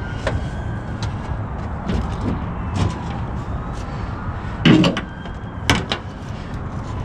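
Knocks and clanks of boots and gloved hands on a truck's perforated metal catwalk and a flatbed trailer's steel edge rail as someone climbs onto the trailer, the loudest a heavy thump about five seconds in. Under them runs a steady low rumble, typical of the truck idling.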